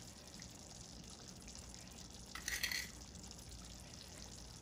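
Pot of stew simmering faintly, with a short hiss about two and a half seconds in as salt is sprinkled into the liquid.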